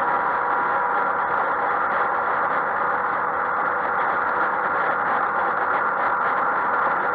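Yamaha XMAX 125 scooter's single-cylinder four-stroke engine and belt drive running at a steady motorway cruise, heard on board mixed with steady wind and road noise. The level holds even throughout, with no change in speed or revs.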